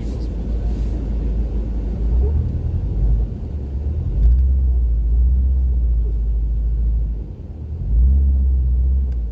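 Honda CR-V backing down a snow-covered trail, a low vehicle rumble that swells and drops several times as it pushes through the snow.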